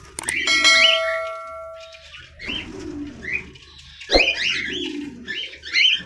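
Caged cockatiels chirping over and over, with lower calls among the chirps. A metallic clang rings on for about a second and a half near the start, and a sharp knock comes about four seconds in.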